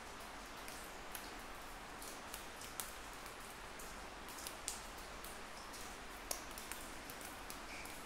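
Water dripping in a stalactite cave: irregular sharp drips and plinks, about one or two a second, over a steady faint hiss.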